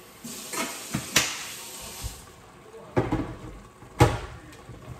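Kitchen tap running for about two seconds as water fills a kettle, with a knock partway through. Then come two sharp knocks about a second apart.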